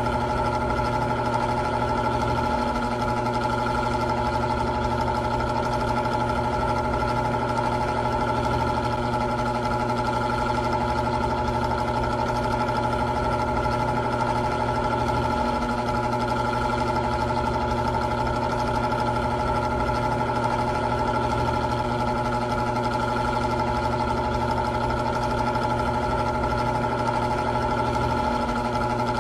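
Old electric fan running steadily: an unchanging motor hum with a few steady tones over a light whoosh of air, the low part of the hum shifting slightly about every thirteen seconds.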